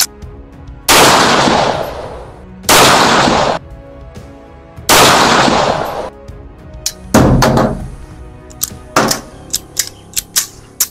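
Daewoo DH380 pistol firing 9 mm rubber bullets: about five shots, roughly two seconds apart, each with a long echo. Several light clicks follow the last shot.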